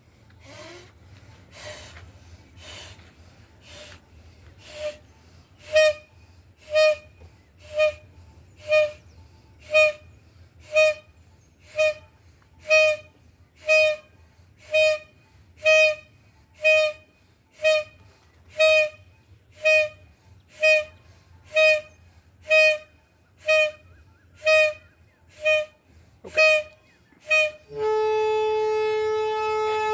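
A horn sounding in short honks about once a second, faint and breathy at first, then loud and clear. Near the end it gives way to one long steady blast at a slightly lower pitch.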